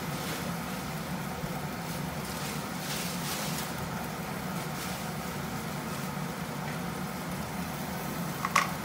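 Steady low hum from a gas stove with a covered wok cooking on it, with a faint hiss that swells now and then; a short metallic clink near the end.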